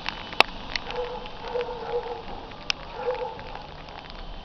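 Tall wooden roundhouse door being pushed shut: a few sharp knocks, the loudest about half a second in, over a faint crackling background.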